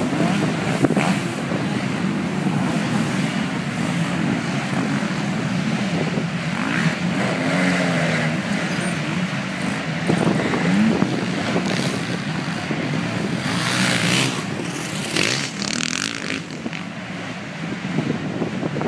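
Several MX2 motocross bikes racing round the track, their engines revving up and down in a continuous mixed drone.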